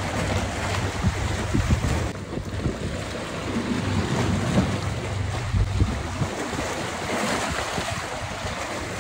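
Strong wind buffeting the microphone over waves washing against the shore rocks: a steady rushing noise with a low, gusting rumble.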